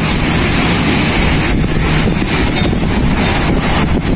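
Steady outdoor noise of wind buffeting the microphone, mixed with road traffic.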